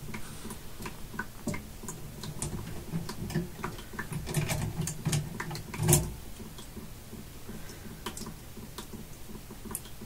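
Irregular small clicks and taps of hand tools and small metal parts being handled while wiring a well pressure switch, the loudest click about six seconds in.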